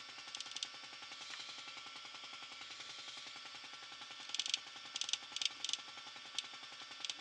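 Surface grinder running with a steady hum, broken by short bursts of high crackling hiss: a cluster of them about four to six seconds in, and single bursts near the start and the end. The bursts are typical of the grinding wheel catching the A2 tool steel.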